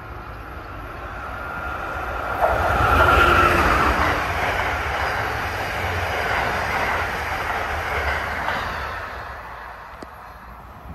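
Amtrak passenger train of Amfleet coaches passing by on the track beside the platform. The rush of wheels on rail builds, jumps to its loudest about two and a half seconds in, holds as the coaches go by, then fades near the end.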